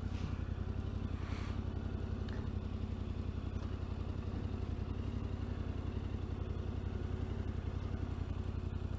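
Yamaha Ténéré 700's parallel-twin engine idling steadily, with a couple of brief clattering noises in the first two seconds.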